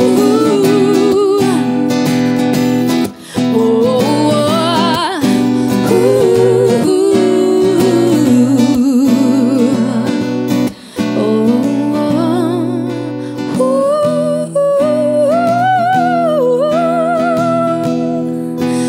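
Live acoustic pop song: a strummed acoustic guitar under two women's voices singing long held notes with vibrato. The music breaks off briefly twice, about three seconds in and again about eleven seconds in.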